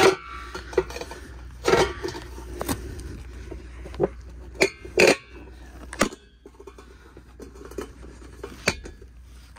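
Chrome steel hubcap on a 1957 Ford Fairlane being pushed and knocked back onto the wheel rim: a dozen or so irregular sharp metallic clanks and scrapes as it seats.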